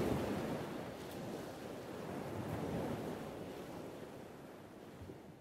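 Wind buffeting the microphone over the rush of sea water around a sailboat under way, a steady noise that fades out near the end.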